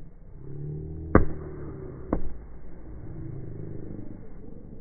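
A volleyball struck hard twice, about a second apart, the first hit the louder, over a low steady rumble.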